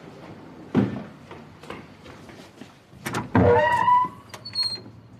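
Footsteps, then a door being unlatched and pulled open about three seconds in, with a loud creak that glides in pitch. A brief high ring follows near the end.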